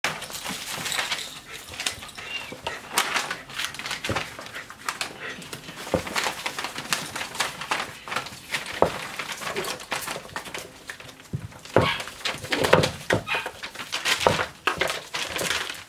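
Five-week-old Shetland sheepdog puppies playing: paper rustling and small claws scrabbling under their feet, with a few brief puppy squeaks and whimpers. The scuffling is busiest a little after halfway through.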